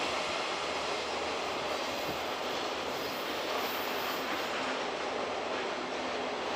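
Freight train rolling on the rails: a steady noise of wagon wheels on the track, with no separate knocks or squeals standing out.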